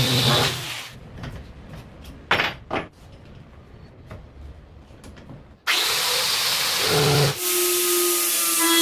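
An angle grinder converted to a drill with a converter nut and 13 mm chuck, its high-speed (11,000 rpm) motor running as it drills into a board, then stopping about a second in. A couple of knocks follow while the bit is changed. At about six seconds it starts again, ending in a steady high whine.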